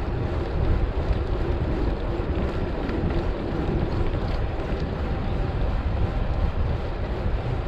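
Steady wind rush on a handlebar-mounted GoPro HERO7's microphone as a bicycle is ridden along at speed, mixed with the rumble of tyres rolling on asphalt; a constant low-heavy noise.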